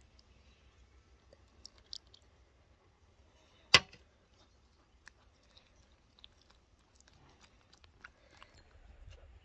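Small clicks and taps of hands working at an enamel bowl of flour and eggs, with one sharp, much louder click about four seconds in.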